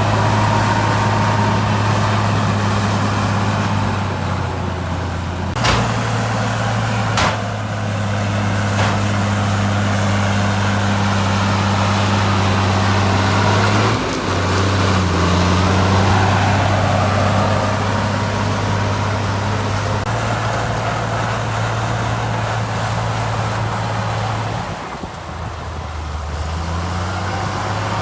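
Heavy diesel engine of earthmoving machinery running steadily, its pitch shifting a few times as the engine speed changes, with a few sharp metallic knocks about six to nine seconds in.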